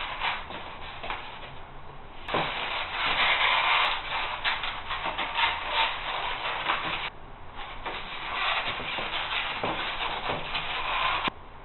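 A formed sheet of fan fold foam rubbed and pressed by hand into a mold: scratchy rubbing and rustling that comes in stretches with short pauses, with a few light knocks.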